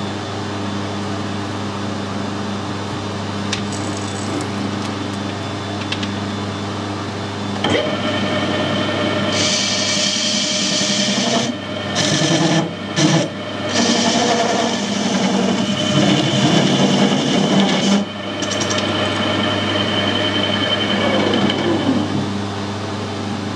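Metal lathe turning off weld from a lawnmower pulley's boss. Under a steady hum, the lathe picks up about eight seconds in. From about nine seconds the tool cuts the weld with a loud, harsh hiss, broken by a few short pauses, then eases off after about eighteen seconds.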